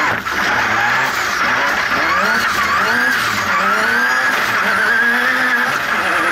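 Turbocharged off-road racing buggy's engine revving hard, its pitch climbing and falling as the throttle works, with a high whine that follows the revs and tyre noise from the dirt. The engine dips briefly right at the start. It is running on wastegate spring pressure only, well down on its usual boost.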